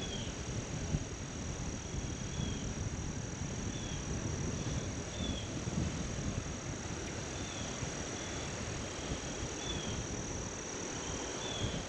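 Steady high-pitched drone of crickets and other insects over a low rush of outdoor noise, with short faint chirps recurring about once a second.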